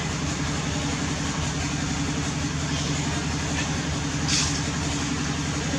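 A motor running steadily with a low, even hum, and a short hiss about four seconds in.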